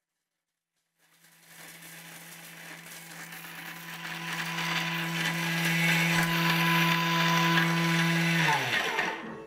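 Thermomix blade motor grating chocolate couverture at high speed, loud: it starts about a second in with a steady hum over a grinding noise that grows louder, then winds down with a falling pitch and stops near the end.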